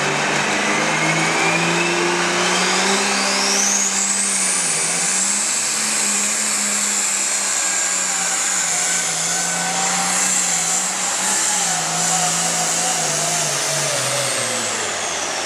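Turbocharged International Harvester super stock diesel pulling tractor running at full throttle under load as it pulls the sled. A high turbo whine rises over the first few seconds to a steady high pitch over the engine's drone, then drops away near the end as the throttle comes off.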